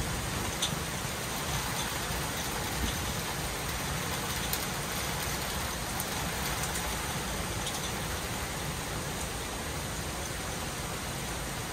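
Steady rain falling at night, an even hiss with a few faint ticks of drops striking close by.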